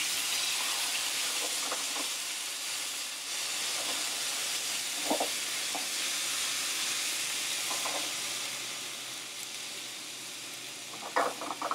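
Crushed tomatoes poured from a can into a hot oiled skillet of seared chicken, sizzling and hissing steadily, the sizzle slowly dying down as the sauce covers the pan. A few light knocks near the end.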